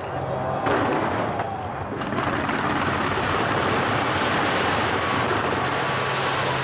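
Fireworks fired from the sides of the Taipei 101 skyscraper: a dense, continuous barrage of overlapping bangs and crackling, with a few sharper bangs in the first two and a half seconds.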